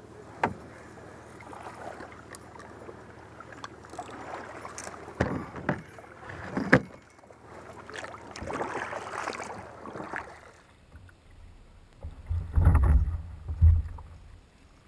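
Kayak paddle strokes swishing and splashing through the water, with scattered sharp knocks and clicks. Near the end, a few loud low thumps.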